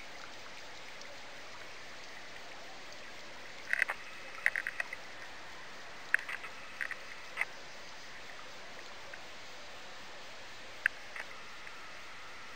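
Outdoor pond-side ambience: a steady hiss like running water, broken by a few groups of short, high chirps about 4 seconds in, again around 6 to 7 seconds, and once more near the end.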